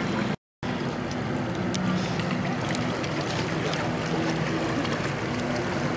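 Steady low hum of slow-moving parade boats' engines on the water, mixed with people talking. The sound drops out completely for a moment about half a second in.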